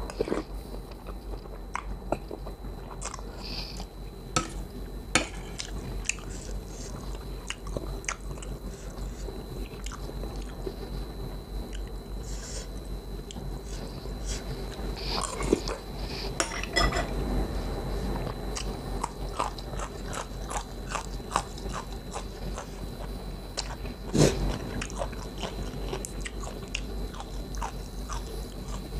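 A person chewing and biting food close to a lapel microphone: a run of small wet clicks and crunches, with one louder knock about 24 seconds in. A faint steady high whine and a low hum sit underneath.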